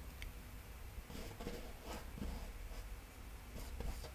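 Paintbrush strokes on canvas: a few soft, irregular brushing and scratching sounds over a low steady room hum.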